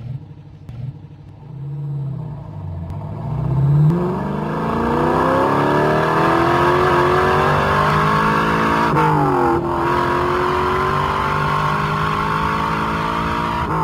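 Car engine starting from a low rumble, then revving up and accelerating away, its pitch climbing steadily. About nine seconds in the pitch drops sharply at a gear change and climbs again, with another shift right at the end.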